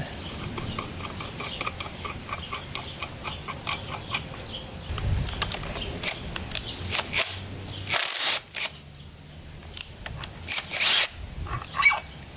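Hand ratchet clicking steadily, about four clicks a second, as the flywheel nut is wound off, followed by a few loud metallic clanks of tools and parts being handled.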